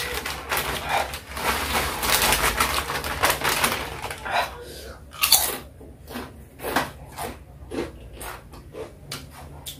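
Plastic potato chip bag crinkling loudly as it is torn open and shaken to pour out the chips, then a few separate sharp crinkles as the emptied bag is handled.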